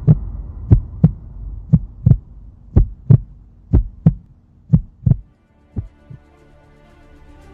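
Heartbeat sound effect: pairs of deep thumps about once a second over a low hum, fading out about six seconds in. Faint music swells in near the end.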